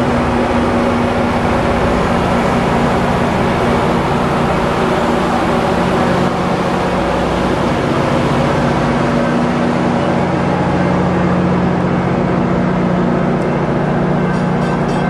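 Metrolink diesel locomotive's engine running steadily while the train stands, a loud, unchanging hum with a constant low pitch.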